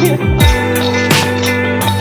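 Background music: an electronic track with a strong beat of deep, falling bass-drum hits under held tones.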